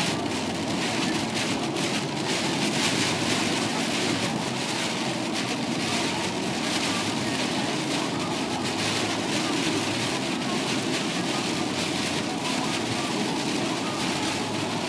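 Heavy rain beating on a moving vehicle's roof and windshield, mixed with the steady hiss of tyres on a flooded road, heard from inside the cab.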